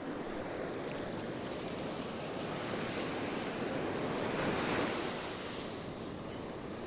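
Ocean surf breaking and washing up the sand at the water's edge: a steady rush that swells to its loudest a little past halfway, then eases.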